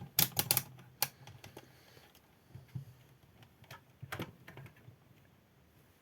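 Quick run of sharp clicks and taps in the first second, then a few scattered single clicks: small hard objects being handled on a workbench.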